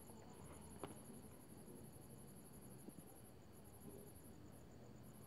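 Near silence: room tone with a faint, high-pitched, rapidly pulsing trill of crickets that comes in phrases with short breaks, and one small tick about a second in.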